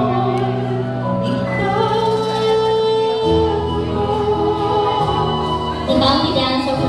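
Background music: a slow sung song with long held notes over sustained chords, the harmony changing about three seconds in and again near the end.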